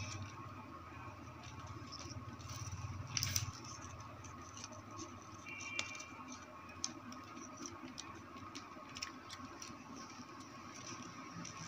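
Faint scattered clicks and taps, typical of small parts and tools being handled, over a steady low hum.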